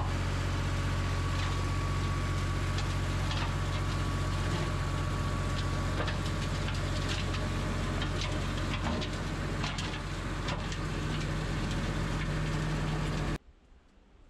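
Lamborghini tractor's diesel engine running steadily while driving a rear flail mower through undergrowth, with many sharp ticks and crackles of vegetation and twigs being chopped. The engine and mower stop abruptly about a second before the end.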